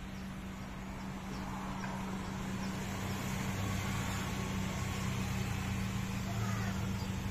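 A steady low machine hum over even outdoor background noise, getting slightly louder about two seconds in.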